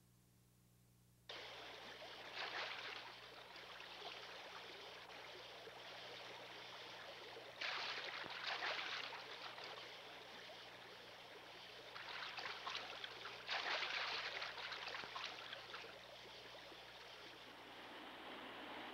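Running stream water, a steady rushing hiss that starts about a second in and swells louder several times.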